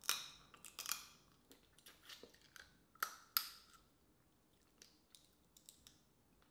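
Boiled crawfish being cracked and peeled by hand and eaten: sharp shell cracks and wet mouth smacks, several loud ones in the first few seconds, then only faint clicks.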